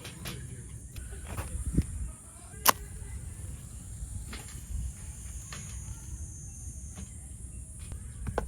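Scattered light clicks and knocks, with one sharp click about two and a half seconds in, over a steady high hiss and a low rumble.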